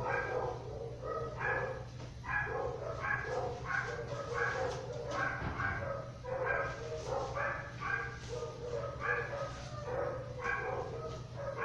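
A dog barking and yipping over and over, about one or two short calls a second, over a steady low hum.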